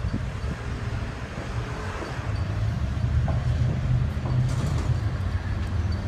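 Train rolling along a street, a steady low rumble with faint clicks about four and a half seconds in.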